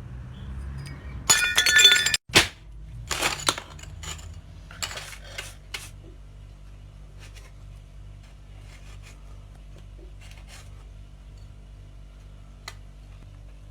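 A loud crash of something breaking, with a glassy, ringing clink, then a sharp hit and several smaller clattering knocks as the pieces settle.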